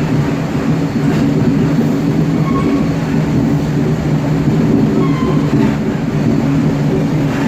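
Traction motors of a CPTM Série 1700 electric multiple unit (car 1726) growling steadily under power, heard from inside the passenger saloon, a steady drone of several low tones. This car's traction sound is a little louder than most of its series.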